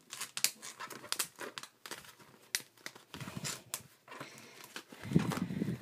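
Duct tape wallets being handled and folded: a run of crinkles and crackles from the taped surfaces, with a couple of dull knocks about three and five seconds in.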